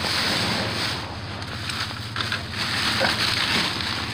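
Plastic trash bags and rubbish rustling as they are handled, over a steady rushing background noise, with a few faint clicks.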